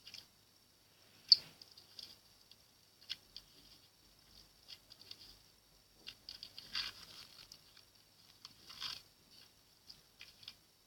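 Slime being squeezed and stretched by hand, giving irregular small clicks and crackles, with a sharper snap a little over a second in and busier stretches near the middle and toward the end.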